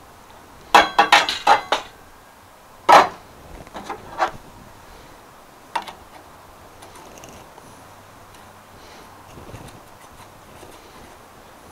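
Small metal antenna parts (radial rods, nuts, a wrench) clinking and knocking against each other and a plastic tabletop as they are picked up and fitted: a quick run of about six clicks a second in, one louder knock about three seconds in, then a few lighter ticks.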